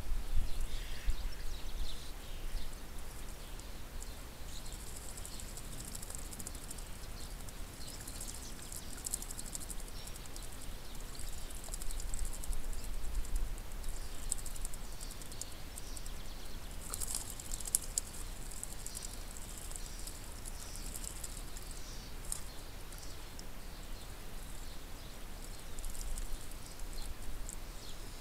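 Common starlings bathing and drinking in a small garden fountain pool: a patter of faint, high splashes, clicks and wing flutters, densest through the middle, over a low steady rumble.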